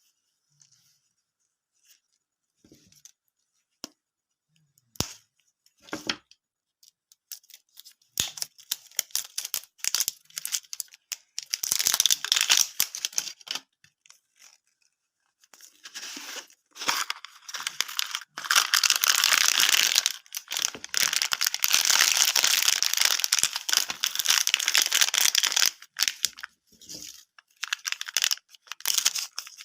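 Plastic candy wrappers being torn open and crinkled by hand. A few light clicks and rustles come first, then steady crackling and tearing, heaviest in two long stretches in the second half.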